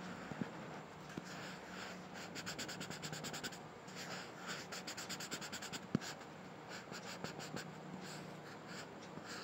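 Pencil scratching on textured paper: short drawn lines, then runs of quick back-and-forth scribbles about a second long as small dots are filled in solid. One sharp tap comes about six seconds in.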